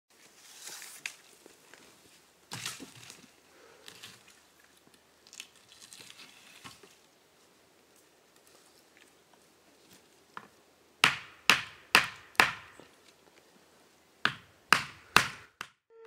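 Faint rustling and crackling of dry pine needles and brush being handled, then two runs of four sharp knocks, each about half a second apart and each with a short ringing tail.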